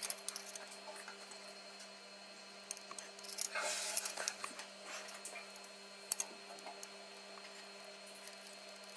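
Small clicks and scrapes of a soldering iron and tweezers working tiny surface-mount capacitors onto a circuit board, with a brief hiss about three and a half seconds in, over a steady low hum.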